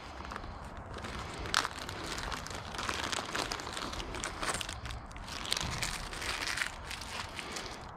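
Plastic crinkling and rustling with small irregular clicks as hands handle small parts.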